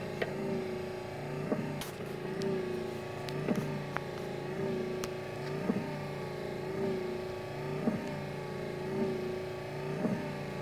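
Ford XC Falcon electric windscreen wiper motor driving the freshly rebuilt wiper linkage through the scuttle: a steady motor hum that dips in pitch about once a second as the wipers sweep, with a light click at each turn of the sweep. The owner judges the rebuilt linkage all right.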